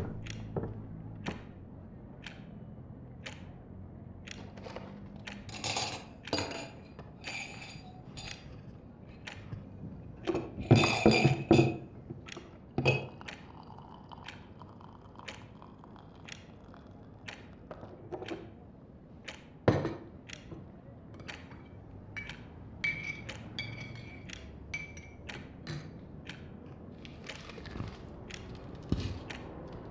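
Someone pottering about indoors: scattered knocks, taps and thunks, with two clusters of bright, ringing clinks about six and eleven seconds in, a sharp knock near twenty seconds, and one clink that rings on briefly a little later.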